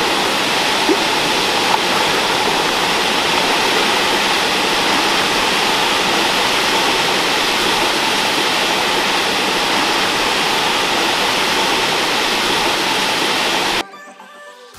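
Waterfall pouring into a pool, a steady loud rush of water that cuts off abruptly near the end.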